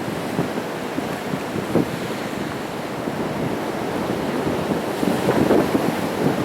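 Sea waves breaking on rocks, a steady wash that swells a little louder about five seconds in, with wind buffeting the microphone.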